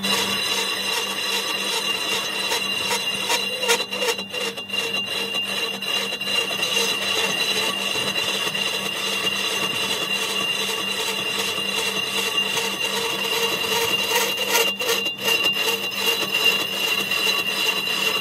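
Lathe boring the inside of a cast iron brake drum: the cutting tool scraping steadily against the spinning iron, with a steady high whine over the rough cutting noise.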